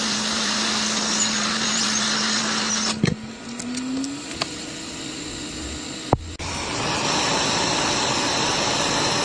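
A small motorised tool humming steadily, its pitch rising a little about four seconds in, with sharp clicks about three and six seconds in; then a steady hiss.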